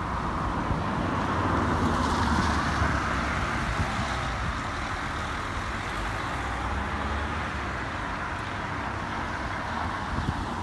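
Road traffic: cars driving past on a wet road, a steady wash of engine and tyre noise that swells about two seconds in.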